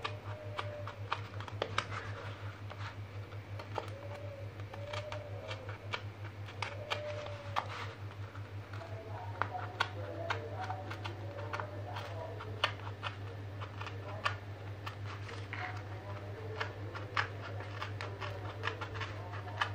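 A craft knife blade cutting slowly through corrugated cardboard along a circle, making irregular short clicks and scratches. A steady low hum runs underneath, with faint wavering tones in the background.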